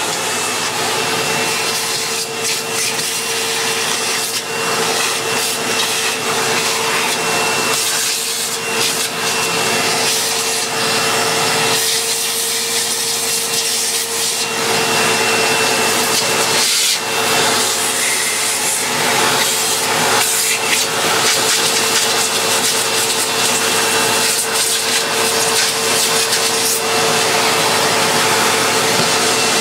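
A vacuum cleaner running steadily with a constant whine, its nozzle sucking debris out of a Dyson cleaner head and rubbing and scraping against the brush bar and plastic housing.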